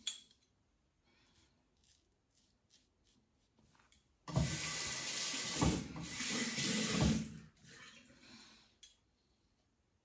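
Water running from a bathroom tap into the sink for about three seconds, starting about four seconds in, with a few low knocks as a safety razor is rinsed under it, then trailing off. A single sharp click right at the start.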